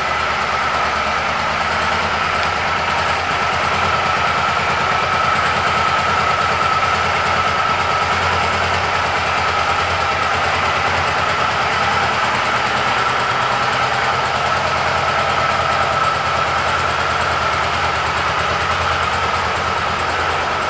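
Suzuki Boulevard C50T's 805 cc V-twin engine idling steadily, with a steady high whine running over the low rumble.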